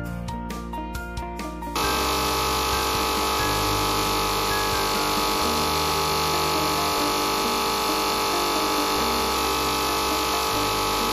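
Background music with a beat, then about two seconds in, the sudden steady whine of a CNC bridge saw's water-cooled blade cutting through a thin stone slab, with the music's bass line still running underneath.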